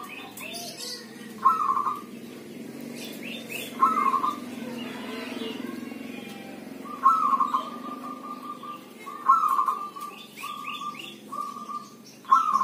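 Zebra dove (perkutut) cooing: five loud phrases a couple of seconds apart, several ending in a long held note, with fainter, higher chirps of small birds between them.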